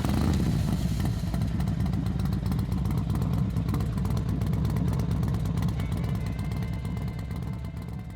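Harley-Davidson V-twin motorcycle engine running, with a fast, even exhaust beat that fades out near the end.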